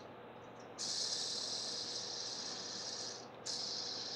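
Light-up fidget spinner whirring as it is spun in the hand, a high hiss. It starts sharply about a second in, drops away briefly near the end, and starts again sharply.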